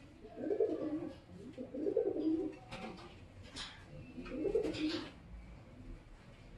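Domestic racing pigeons cooing: three low coos, each about a second long.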